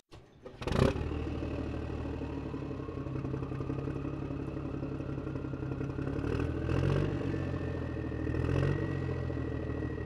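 An engine starting about a second in, then running steadily, with a whine that slowly rises in pitch and two short revs near the end.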